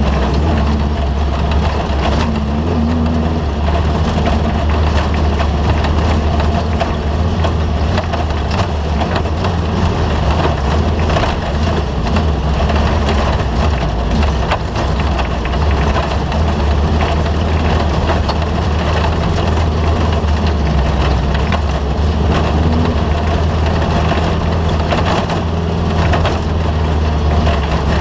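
Off-road race vehicle running steadily at speed, a loud continuous engine drone with constant rattling and clattering over it.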